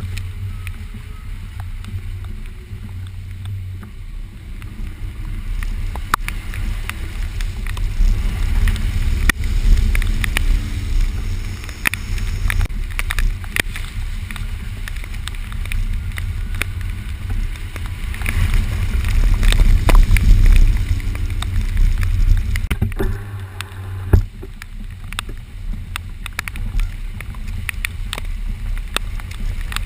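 Subaru Forester driving a wet off-road trail, heard from inside the cabin: a steady low engine and road rumble with scattered knocks and clicks from the rough ground. It grows louder about two-thirds of the way through, and one sharp knock comes near the end.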